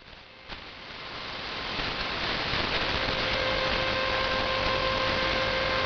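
Shortwave receiver hiss on 11995 kHz, with a click about half a second in. The hiss swells for about two seconds and then holds steady, as if the station's carrier has just gone off the air at the end of the transmission. From about two seconds in, a steady whistling tone and its overtones sit faintly over the hiss.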